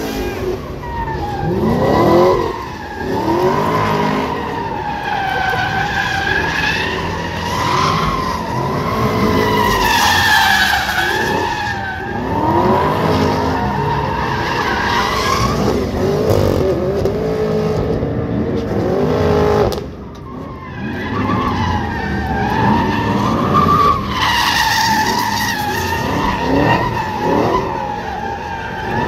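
A car doing a burnout and donuts: the tires squeal on and on with a wavering pitch, and the engine revs up and down under it. The squeal drops away briefly about twenty seconds in, then picks up again.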